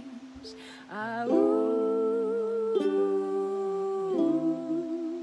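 Two voices, a woman's and a young man's, singing a wordless line of long held notes together in harmony, with a slight wobble in the pitch, over a ukulele; a little past four seconds in the harmony drops to one lower wavering note.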